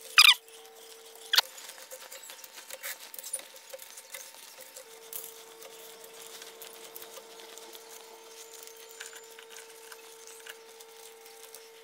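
Small clicks and fabric rustling as curtain hooks are clipped onto the rollers of a curtain track, with one sharper click about a second and a half in. A faint steady hum sits underneath.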